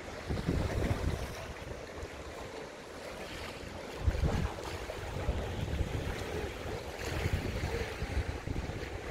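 Wind buffeting the microphone in irregular gusts, over the steady wash of sea water and waves; the strongest gust comes about four seconds in.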